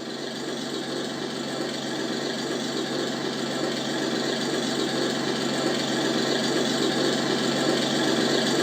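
Steady engine-like mechanical running sound with a constant low hum, slowly growing louder.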